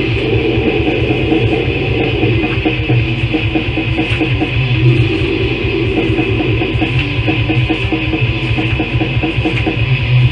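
Death metal recorded on a 1994 demo cassette: heavily distorted electric guitars over fast, dense drumming.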